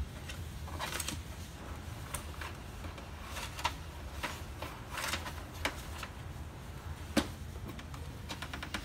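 Irregular plastic clicks and brief rustles from hands working inside a Samsung SCX-4321 laser printer's open front; the sharpest click comes about seven seconds in.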